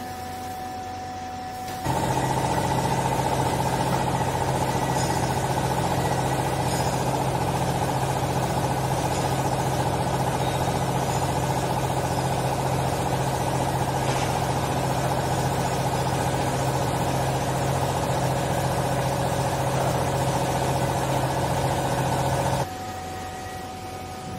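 Hydraulic cloth baler's motor and pump running, a steady loud drone with a low hum, starting abruptly about two seconds in and cutting off abruptly near the end.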